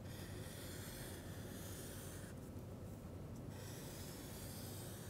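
Felt-tip marker drawn across flip-chart paper in long strokes: a scratchy rubbing, broken by a pause of about a second in the middle.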